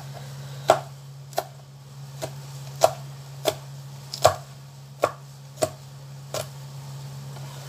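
Kitchen knife chopping green beans on a cutting board: nine short, sharp chops at an even pace, about one every 0.7 seconds, over a steady low hum.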